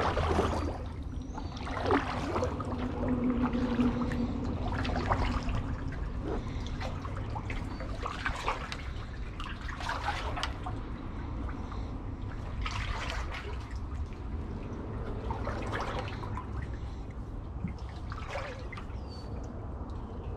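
Kayak paddle strokes: water splashing and dripping off the paddle blade every two to three seconds, over a steady low rumble.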